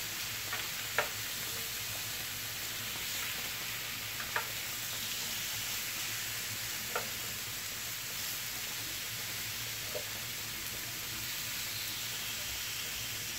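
Chicken pieces sizzling steadily as they fry in an oiled grill pan. A few sharp clicks of metal tongs against the pan as the pieces are turned, spaced about every three seconds.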